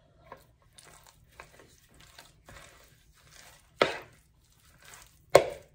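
Kitchen utensils and bowl being handled on a counter: faint scraping and rustling, then two sharp knocks about a second and a half apart, the second the louder, near the end.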